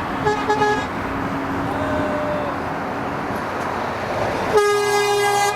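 A vehicle horn toots briefly in short taps about half a second in, then sounds steadily for about a second near the end, over steady loud background noise.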